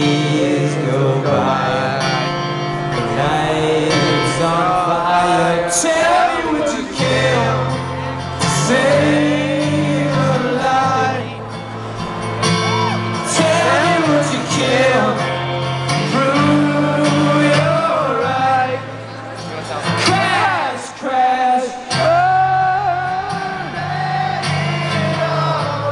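Acoustic guitar strummed in steady chords under a male lead vocal, played live.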